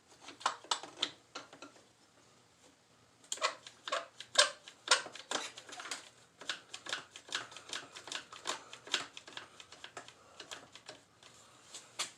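Clamps being worked and tightened on the motorcycle, a run of sharp, irregular clicks and taps. There is a short burst at the start, a pause, then rapid clicking for most of the rest.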